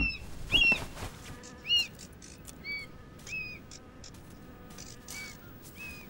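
Birds squabbling over a carcass: short, high, arched calls repeating every half second or so, with a couple of louder bursts of wings flapping in the first two seconds.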